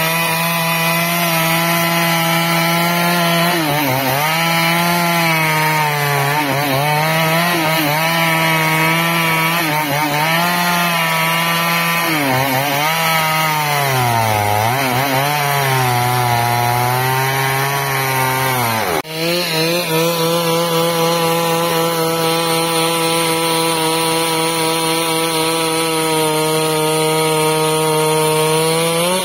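Two-stroke chainsaw at full throttle ripping a log lengthwise, the engine pitch sagging and recovering several times as the chain bogs in the cut. After a short break about two-thirds of the way through it runs on at a steadier pitch.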